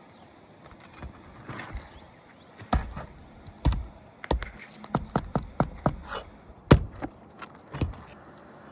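Flat pry bar knocking against asphalt shingles and roof decking as shingles are worked loose and their nails pulled. It comes as a series of sharp knocks, with a quick run of taps about halfway through.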